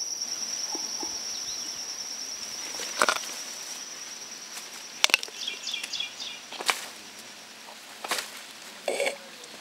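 A high, steady, pulsing insect trill fades out about two-thirds of the way through. Over it, a Galápagos giant tortoise chews fruit, giving about five sharp crunches a second or two apart.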